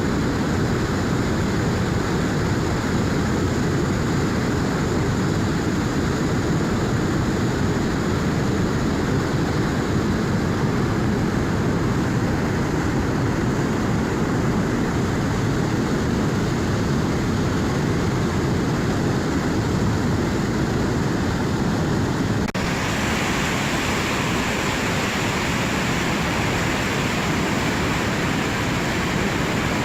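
Fast, high-flowing river rushing steadily with a deep, even roar of water. About three-quarters of the way through it turns abruptly brighter and more hissing.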